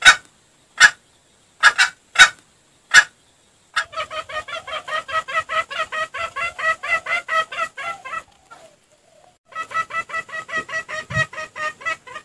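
Junglefowl lure recording: a few sharp single clucks, then a rapid run of clucks at about six a second lasting some four seconds, a short pause, and a second run near the end.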